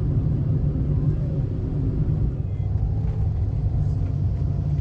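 Road noise inside a moving car: a steady low rumble from the engine and the tyres on a wet road.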